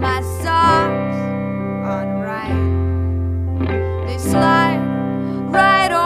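A recorded song: a woman singing in short phrases over instrumental accompaniment, with long held low bass notes beneath.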